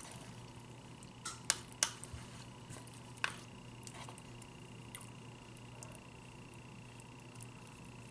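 A plastic fork clicking and scraping against a plastic takeout bowl as pasta is scooped up. There are a few sharp clicks: three close together between about one and two seconds in and another just past three seconds, over a faint steady hum.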